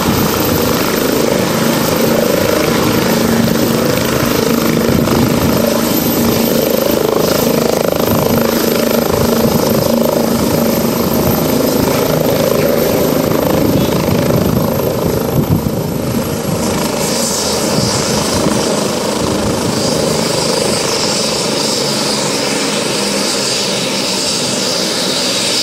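Light turbine helicopter landing and then running on the ground with its rotor turning: a loud, steady rotor and turbine noise over a thin high whine that drops slightly about two-thirds of the way through.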